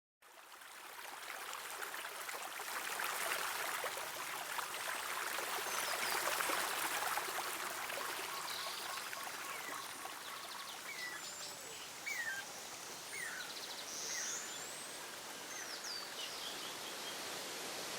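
Waterfall, a steady hiss of rushing water fading in at the start, with birds chirping over it in the second half.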